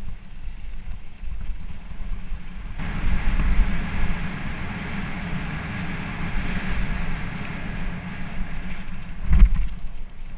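Mountain bike rolling fast downhill: a steady low rumble of wind on the action camera's microphone, with a rougher hiss of the tyres on loose dirt from about three seconds in, and one sharp thump of the bike or camera about nine seconds in.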